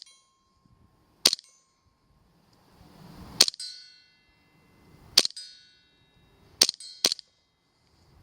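Airsoft gun shooting at a metal target: about six sharp cracks spaced a second or two apart, the last two close together. Several are followed by a fading metallic ring from the struck target.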